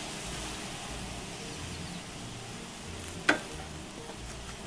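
Honeybees buzzing around an open horizontal Langstroth hive over a steady hiss, with one sharp click about three seconds in.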